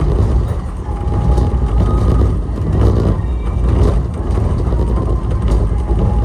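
Airport subway people-mover train running between stations: a steady, loud low rumble of the car in motion, with faint brief whining tones on top.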